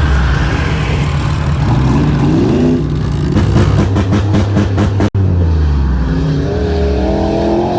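Demolition derby car engines revving hard, the pitch climbing and falling as the drivers work the throttle, with a loud, rapid pulsing in the middle stretch.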